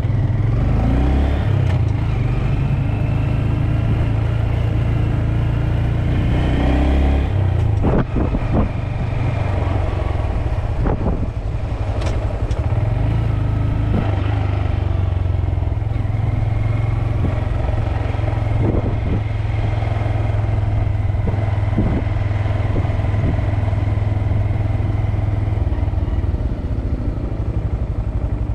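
A small motorcycle engine heard from the bike while riding. It revs and changes pitch through the first seven or eight seconds, then runs steadily at cruising speed. A few sharp clacks come between about eight and twelve seconds in.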